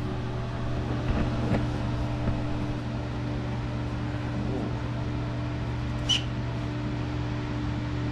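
A steady low mechanical hum runs throughout. A few light clicks sound about a second in, and a brief sharp squeak or click comes just after six seconds.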